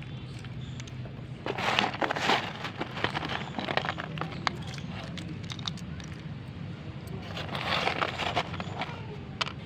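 Dry multani mitti (fuller's earth) clay chips crunching and clattering in two crackly bursts, with scattered sharp clicks of chips in between.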